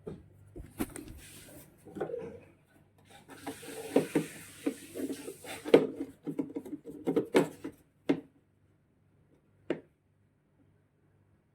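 Hands working on parts and tools: irregular clicks, knocks and rubbing, with a scratchy rustle for a few seconds in the middle, then a single sharp click near the end.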